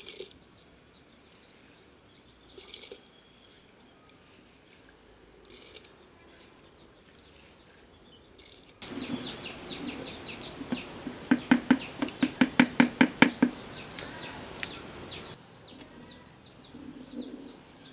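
Small birds chirping, sparse at first and then as a steady stream of quick high chirps from about halfway through. Over the chirping, a hen clucks in a quick run of about a dozen clucks.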